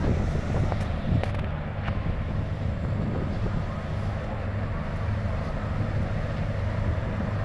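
Steady low drone of a river passenger vessel's diesel engines running at speed, with a few faint clicks about a second in.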